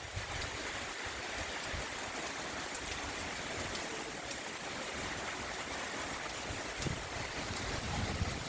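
Steady hiss of tropical-storm rain and wind, with low wind buffets on the microphone a few times.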